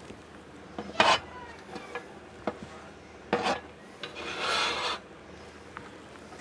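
Knife scraping chopped vegetables across a cutting board: several short scrapes, then a longer one about four seconds in.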